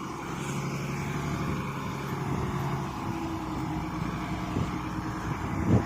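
IVECO 420 tractor unit's diesel engine running steadily, a low drone whose pitch shifts about three seconds in.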